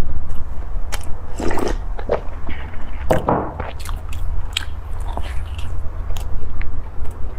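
Close-up chewing of a soft baked bun, with louder wet mouth sounds about one and a half and three seconds in, over a steady low hum.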